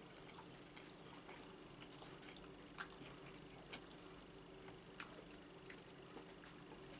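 Faint chewing and wet mouth sounds of a man eating cold beet soup, with scattered soft clicks, the sharpest about three and five seconds in, over a faint steady hum.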